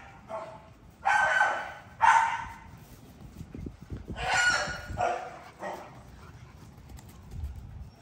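American bully puppy barking during rough play: a run of about six sharp, high barks in uneven bursts, the loudest a little after one, two and four seconds in.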